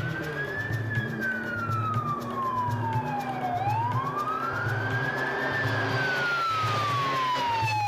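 Police car siren wailing in slow rises and falls, each climb and drop taking about four to five seconds, over a low rhythmic pulse.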